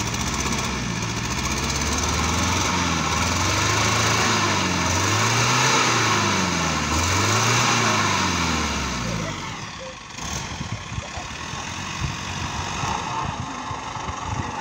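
Off-road jeep's engine revving up and down again and again while the vehicle sits stuck in a river, belching exhaust smoke. The engine note falls away about ten seconds in, leaving quieter irregular knocks.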